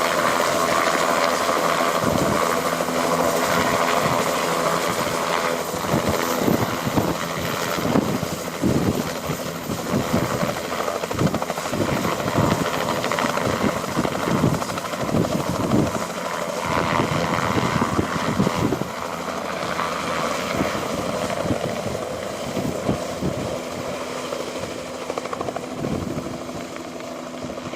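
Helicopter running loud, with a rapid pulsing rotor beat through the middle, then gradually fading as it flies away.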